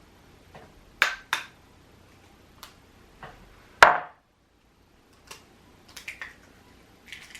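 Scattered knocks and clinks of kitchen items being handled and set down on a counter. The loudest knock comes a little after halfway and rings briefly.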